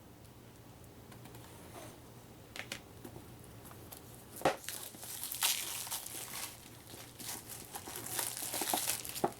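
Plastic wrapping on a board game box crinkling and tearing as the box is opened. It is quiet at first; a sharp click comes about halfway through, and then a stretch of rustling crinkle follows.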